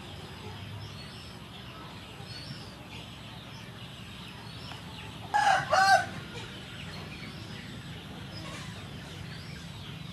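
A chicken gives one loud, short call in two rising-and-falling parts about halfway through, over faint bird chirps.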